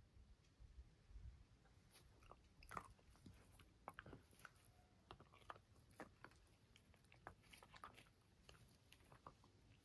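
Jack Russell terrier gnawing on a chew held between its front paws: faint, irregular crunching and clicking of teeth, starting about two seconds in.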